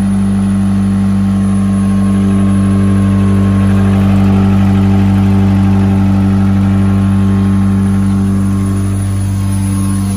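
Ditch Witch FX60 vacuum excavator's Cummins diesel engine, freshly started, running at a steady speed with a faint regular throb of about two to three beats a second.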